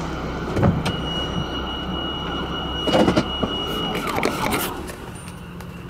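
Car running with steady cabin noise as it pulls into the wash bay, with a few clunks and a thin, steady high tone lasting about three seconds. The noise drops a little near the end.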